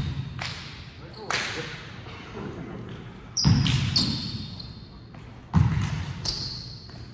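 A volleyball bouncing on a hardwood gym floor: several thumps a second or two apart, each ringing in the big hall. Short high squeaks, like sneakers on the floor, come in between.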